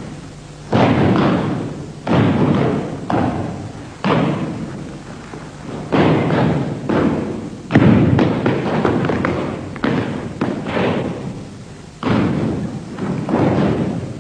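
A group of Bajiquan practitioners stamping and striking in unison on a gym floor. Heavy thuds come roughly every two seconds, each trailing off over about a second.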